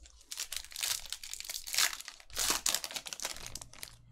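Foil wrapper of a Panini Prizm basketball card pack crinkling and tearing as it is ripped open by hand. It makes a quick string of rustles, loudest around the middle.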